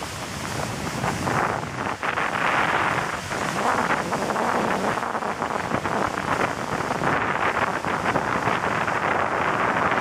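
Ocean surf breaking and whitewater washing in, a steady rushing that swells and eases, with wind buffeting the microphone.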